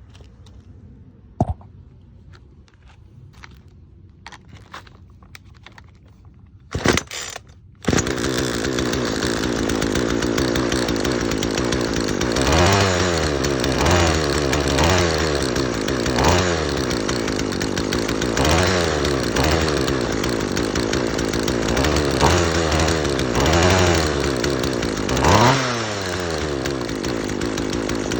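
Poulan Pro 295 two-stroke chainsaw engine pull-started and catching about eight seconds in, then running with a series of short revs rising and falling as the throttle trigger is squeezed. The trigger opens the throttle only a little, which the owner puts down to too little tension on the throttle line after the rebuild.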